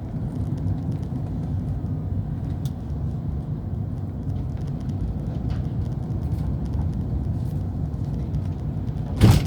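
Car cabin noise while driving: a steady low rumble of engine and tyres. Just before the end comes one brief, loud noise.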